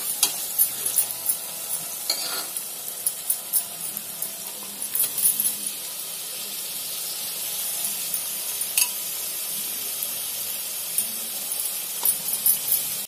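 Onions, green chillies and ginger-garlic paste sizzling in hot oil in an aluminium pressure cooker, with ground mint-coriander paste just added. A steel ladle stirs and clicks against the pot, mostly in the first few seconds and again near the end, over a steady frying hiss.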